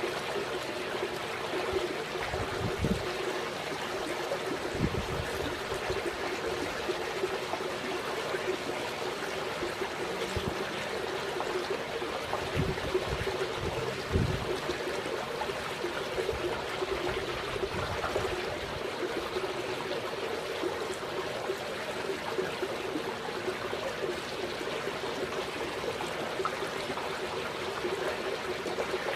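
Steady trickling, running water from the pool, with a low steady hum underneath. A few soft low thumps come through about a quarter and again near halfway.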